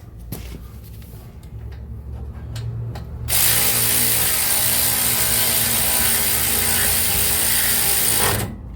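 A ratchet run steadily for about five seconds, starting about three seconds in and stopping abruptly, as a nut is screwed down snug. A few faint clicks come before it.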